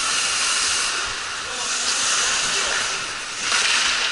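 Ice hockey skates scraping and carving on rink ice, a steady hiss that gets louder about three and a half seconds in as players skate up close to the boards.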